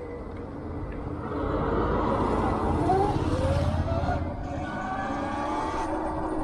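Sur-Ron electric dirt bike's motor whining, its pitch rising and falling several times as the speed changes, over a low rumble.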